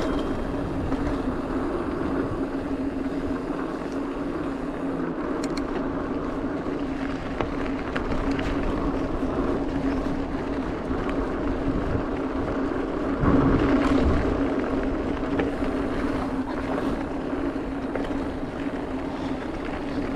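Mountain bike rolling downhill on a dirt fire road: tyre noise on packed dirt and gravel with a steady hum and scattered small rattles, louder for a moment about two-thirds of the way through.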